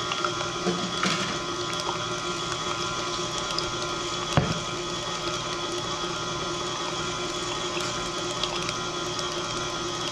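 KitchenAid Classic Plus stand mixer running steadily, its wire whisk beating a thin egg-and-cream mixture in the stainless steel bowl. A single short knock comes about four and a half seconds in.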